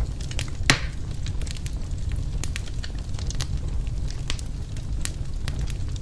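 Wood fire crackling, with frequent small pops over a low steady rumble; one loud sharp pop comes a little under a second in.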